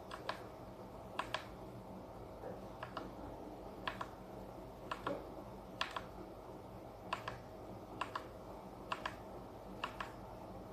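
Keys being typed one at a time on a ZIYOU K3 mechanical keyboard with red switches and ABS double-shot keycaps, about once a second. Each keystroke is a quick pair of clacks, over a faint steady hum.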